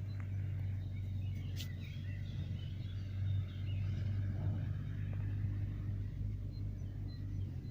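Birds chirping faintly over a steady low rumble, which drops away near the end.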